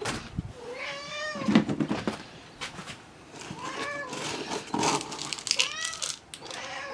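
Hungry house cats meowing over and over for their dinner, about four drawn-out, wavering meows, while a plastic scoop rattles through dry cat kibble in a plastic tub.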